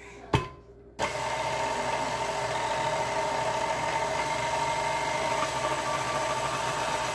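KitchenAid tilt-head stand mixer: a sharp click, then about a second in its motor starts and runs at a steady, unchanging pitch as the flat beater mixes flour into the dough.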